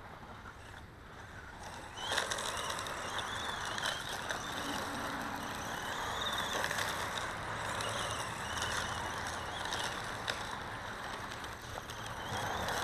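Small 1/18-scale electric RC short course truck driving on loose gravel: its brushed motor whines, rising and falling with the throttle, over the hiss and crunch of its tyres spinning in the stones. The sound gets louder about two seconds in.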